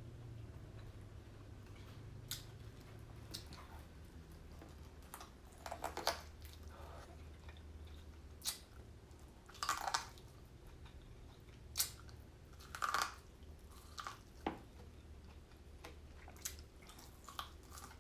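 Biting and chewing corn on the cob: about a dozen short, irregular mouth sounds, with a low steady hum underneath.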